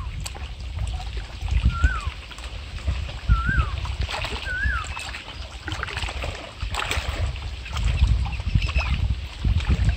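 Wind buffeting the microphone over small waves lapping on a rocky shore. A bird gives a short whistled call that rises then drops, four times in the first five seconds.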